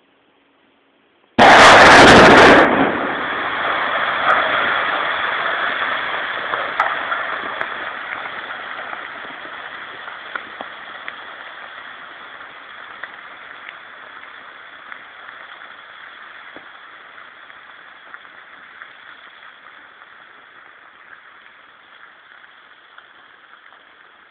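Quarry blast: a sudden, very loud explosion about a second and a half in, then a long rumble and clatter of rock falling down the white stone face, with scattered sharp cracks, fading slowly away.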